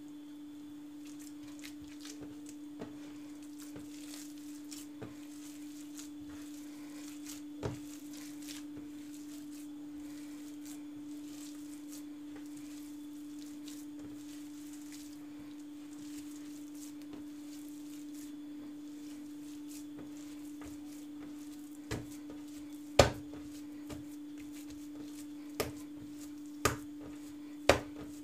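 Hands kneading minced kebab meat on a countertop, with faint soft squishing. In the last six seconds the meat mass is slapped down onto the counter, about five sharp slaps, the second the loudest. A steady hum runs underneath.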